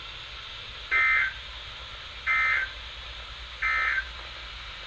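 Three short bursts of Emergency Alert System SAME digital data tones, a rapid warbling chirp each about a third of a second long and about 1.4 seconds apart, over a steady hiss. They are the end-of-message code that closes the alert.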